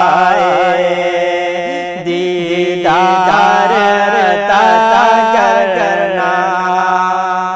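A man's solo voice singing an Urdu naat in long, ornamented, melismatic lines over a steady low drone, beginning to fade near the end.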